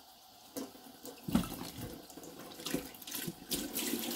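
Tap water running into a plastic measuring jug in a stainless-steel sink, splashing as a natural pork casing is held under the stream and filled to flush it through. Faint at first, it turns louder with a few sharp splashes about a second in, then runs more steadily toward the end.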